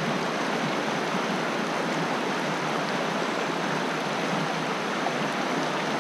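Shallow river rapids at low water rushing over rocks: a steady, even rush of water.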